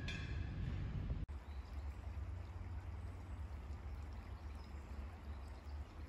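Wind buffeting the microphone outdoors: a steady, uneven low rumble with a hiss of moving air above it, broken by a brief dropout about a second in.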